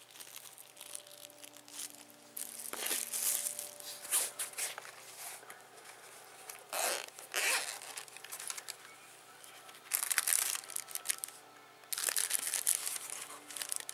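Clear plastic bag crinkling in several bursts as it is handled and a pair of sunglasses is pulled out of it.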